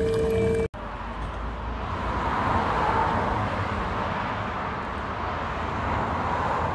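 A hot-drinks machine hums steadily as it fills a cup, then cuts off suddenly within the first second. After that comes steady outdoor traffic and vehicle noise.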